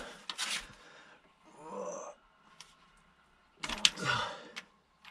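Socket ratchet working on the top fill plug of a manual transmission: a few sharp metallic clicks, the loudest cluster a little before four seconds in, between heavy breaths of effort.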